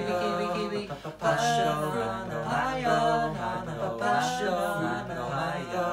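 A cappella vocal ensemble of one man's voice multitracked in several parts, each part repeating a short rhythmic fruit-name chant such as 'mango, mango' at the same time. There is a brief dip about a second in before the voices come back in.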